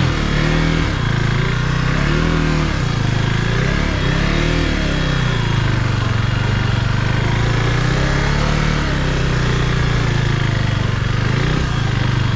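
KTM 390 Duke's single-cylinder engine running under way. Its pitch rises and falls with repeated throttle changes over the first few seconds, then holds steadier.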